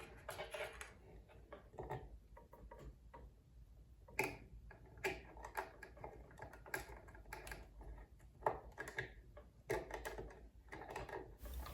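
Faint, irregular clicks and light taps of hand work on a 3-way switch's terminal, as wire and tools are handled while it is wired.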